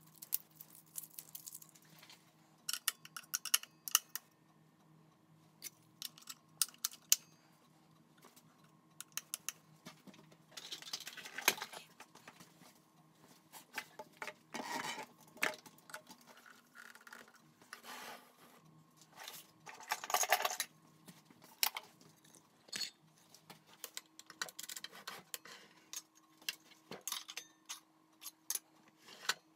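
Handling noise on a Makita LS1018L sliding compound mitre saw: scattered small clicks and taps of plastic and metal parts, with a few longer scraping rustles as the corrugated dust extraction hose is fitted. A faint steady hum sits underneath.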